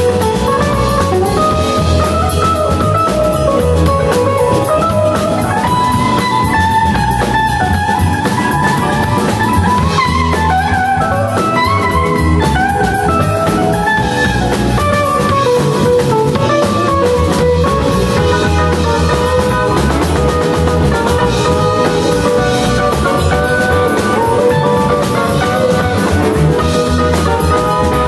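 A live band playing an instrumental passage on electric guitars, keyboard and drum kit, with a melody line wandering over a steady drum-and-bass groove.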